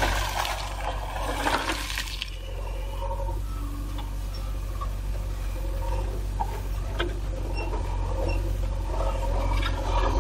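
JCB 3DX backhoe loader's diesel engine running steadily while its backhoe bucket digs into a pile of rocks and soil, the stones scraping and rattling, most in the first two seconds and again near the end.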